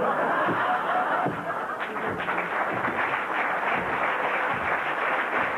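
Theatre audience applauding: many hands clapping at once in a dense, even patter.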